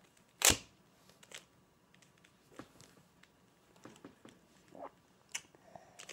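Plastic Rubik's Cube layers being twisted by hand: scattered short clicks and clacks, with one louder knock about half a second in.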